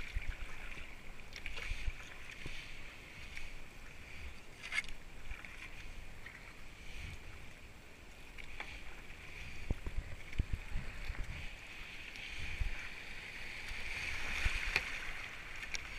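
Rushing water of shallow river rapids around a racing kayak, with the splash of paddle strokes and scattered low knocks. The rushing grows louder near the end as the boat runs into rougher white water.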